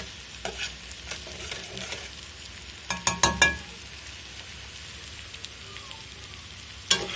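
Two eggs frying in oil in a steel pot, sizzling steadily, while a metal spoon scrapes and clinks against the pot. The strokes are loudest in a cluster about three seconds in.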